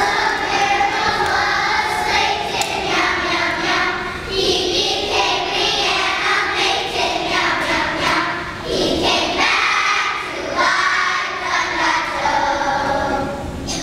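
Children's choir singing together, many young voices on a melody.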